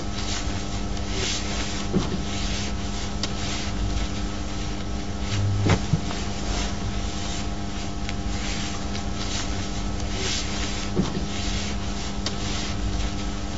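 A large calligraphy brush dragging across paper in slow strokes: soft, irregular swishes and rasps, with a few light knocks, over a steady electrical hum.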